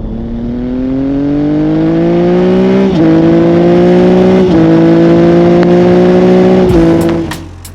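A vehicle engine accelerating through the gears. Its pitch climbs, drops sharply at two upshifts about three and four and a half seconds in, then cuts off near the end.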